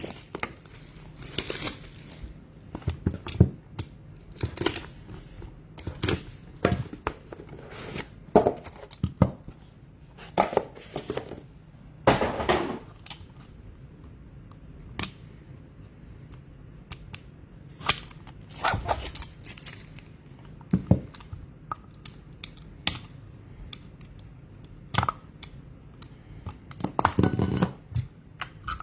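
A trading card pack being torn open and its wrapper crinkled, then the cards handled. Irregular small clicks and short rustles.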